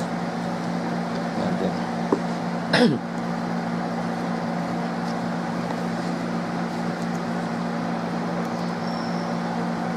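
Steady low machine hum, typical of an air conditioner or fan running in a small room. There is a small click about two seconds in and a short sound sweeping down in pitch just before three seconds.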